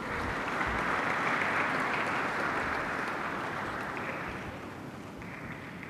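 Audience applauding: a crowd clapping that starts right away, is fullest in the first couple of seconds and then gradually dies down.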